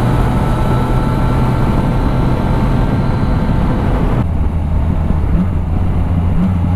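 Yamaha MT-09 Tracer's three-cylinder engine with Akrapovic exhaust cruising at motorway speed, with heavy wind rush over the microphone. About four seconds in it changes abruptly to a lower, steadier engine note with much less wind, at a slower pace.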